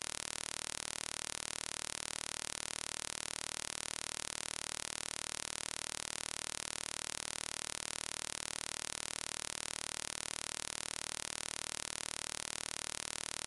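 Steady, even static hiss that does not change.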